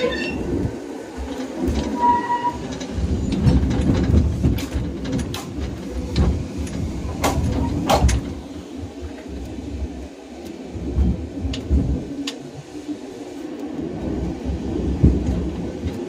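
Vintage tram running on its rails: a steady low rumble with scattered clicks and knocks from the wheels and car.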